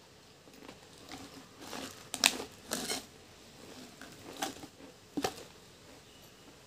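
Pringles potato chips crunching and crackling in short, sharp bursts, the loudest snap about two seconds in, with a few more crackles as a hand reaches into the Pringles can for more.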